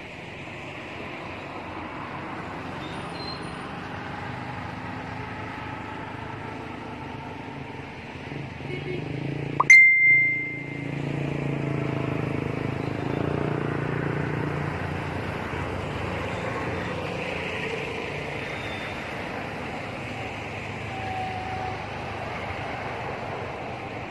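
Steady low background rumble. About ten seconds in there is a sharp click, then a brief high steady tone.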